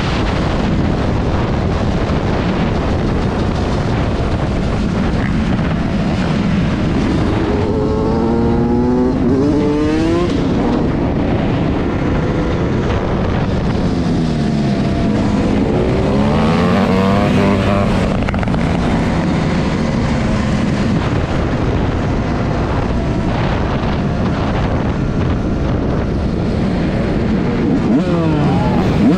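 Motorcycle engine running under way, over a loud steady rush of noise. Its pitch climbs and falls several times as it revs up and eases off, with the clearest rises in the middle and near the end.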